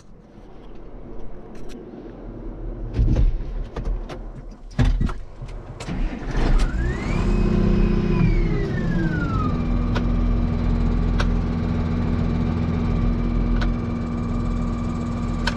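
Tractor engine heard from inside the cab, with clicks and knocks from the controls over the first few seconds. About six seconds in, the engine revs up quickly and holds briefly, then falls away over a couple of seconds and runs on at a steady, lower speed, with the tractor stopped in wet ground while hitched to a disc harrow.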